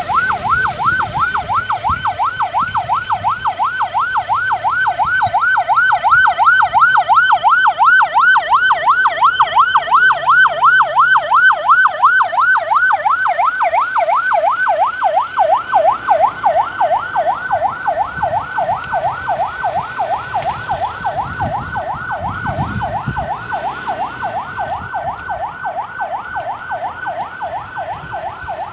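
Vehicle siren on a fast yelp, one tone sweeping up and down about three times a second. It grows louder over the first third, then slowly fades.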